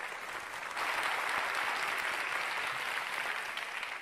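Large audience applauding steadily, swelling about a second in.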